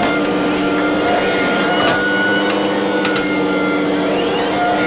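Hitachi ZX210F-5G long-arm excavator's diesel engine running steadily under load with a steady hydraulic whine, heard from the cab as the boom swings a bucket of mud, with a few light knocks and clicks.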